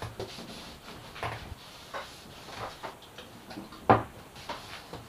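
Light knocks and handling noises of hands working around a wooden cabinet frame and a finish tin, with one sharp knock about four seconds in.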